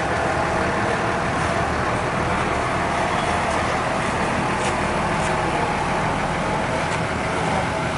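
Large bus engine running steadily amid road traffic noise.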